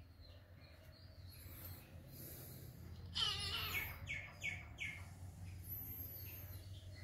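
Small birds chirping: a harsh call about three seconds in, then three quick falling chirps, with faint high thin whistles now and then over a low steady hum.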